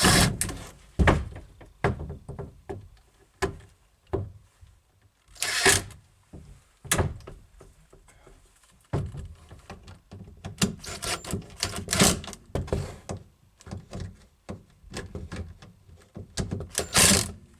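Irregular knocks, thunks and clicks of screwing a magnetic door catch into a door, with a few short, sharp noisy bursts.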